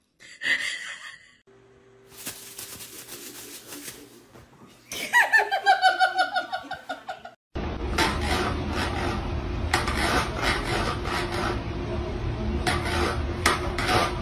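A person laughing in quick bursts about five seconds in, the loudest sound here. Before it comes a short noisy stretch, and after it a steady rustling background with repeated sharp clicks or knocks.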